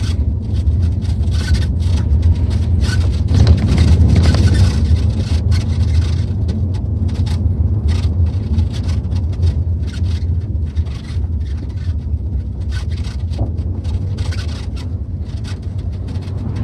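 Inside a pickup truck's cab while driving: a steady low engine and road rumble, with frequent irregular rattles and scrapes from the cab and the scrap load, busiest a few seconds in.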